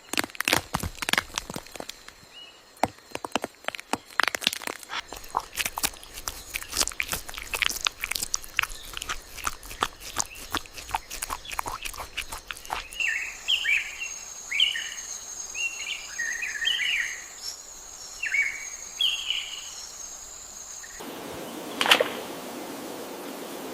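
Forest ambience that changes twice. First comes a dense run of sharp clicks and crackles. Then a bird gives a series of short chirping calls over a steady high-pitched whine, and near the end the sound cuts to an even rushing hiss with one loud click.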